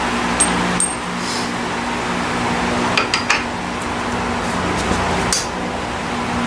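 Steady mechanical hum with a few sharp metallic clinks of tools against car suspension parts: two near the start, a close pair about three seconds in and one about five seconds in.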